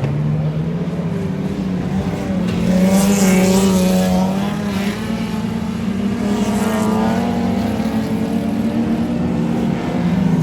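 Speedway race cars running around the oval: a steady drone of several engines, with cars passing close about three seconds in and again about six seconds in, their engine note rising and falling as they go by.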